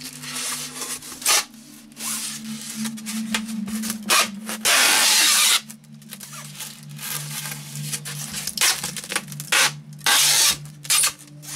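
Strapping tape being pulled off a handheld tape-gun dispenser and wound around a styrofoam block: several short sharp pulls of tape off the roll, with one long pull of about a second near the middle, and the tape and dispenser rubbing against the foam.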